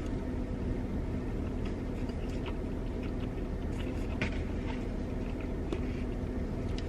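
Steady low hum of a car idling, heard from inside the cabin, with a few faint, short clicks scattered through it.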